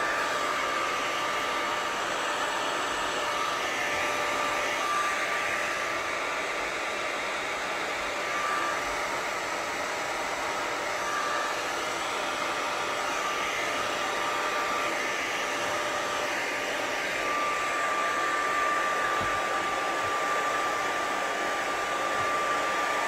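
Hand-held hair dryer with a diffuser attachment running steadily, a steady high whine over the rush of air.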